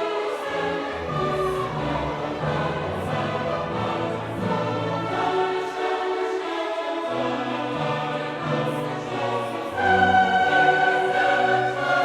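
Choral classical music with voices singing held notes over an orchestra, swelling louder near the end.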